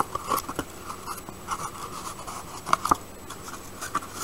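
Handling noise from a watercolor sample palette's plastic tray and paper card: light scraping and rustling with scattered small clicks and taps.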